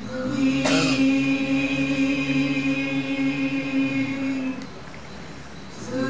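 Voices chanting a waka poem in chorus, in drawn-out held notes: one long note is sustained for about four seconds, then dies away, and the chant starts again near the end.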